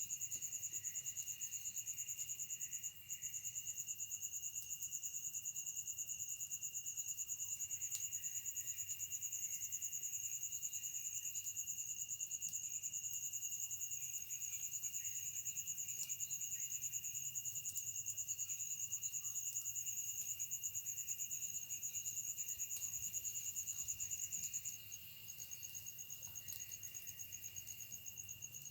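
Night insects trilling continuously: a high, rapidly pulsing trill over a steadier, lower whining tone. The high trill breaks off for a moment about three seconds in and becomes quieter near the end.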